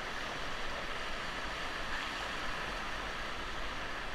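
River water rushing steadily around a raft.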